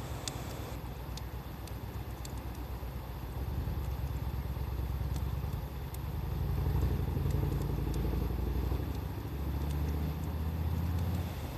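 Wood fire crackling with scattered sharp pops, over a louder low engine-like rumble that swells and falls.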